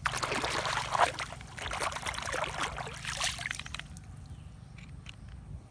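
Water pouring and splashing for about four seconds, then dying down to a trickle, over a steady low hum.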